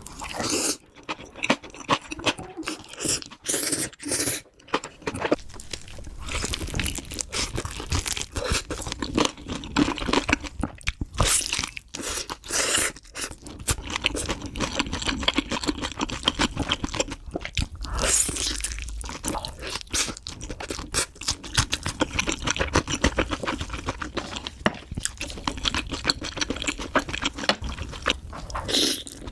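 Close-miked ASMR eating sounds: a person chewing and biting spicy chicken noodles, chicken thigh and enoki mushrooms, with dense crunching and wet clicking mouth sounds.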